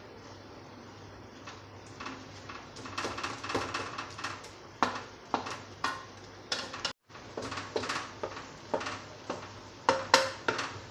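A spoon stirring curry in a cooking pot, clinking and knocking against the pot at irregular moments from about two seconds in, over a steady low hum. The sound cuts out briefly about two-thirds of the way through.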